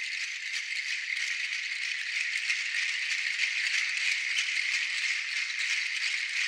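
A rattle shaken continuously and fast, a dense dry shaking that grows slightly louder.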